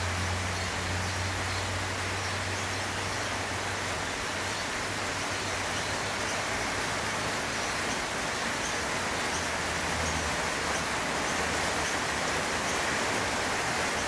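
Steady rain falling on leaves, an even hiss with no breaks. A low hum sits underneath, strongest for the first few seconds and again about ten seconds in.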